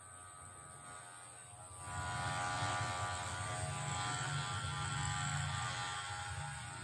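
Cordless electric hair clipper buzzing steadily as it cuts short hair. It gets louder from about two seconds in.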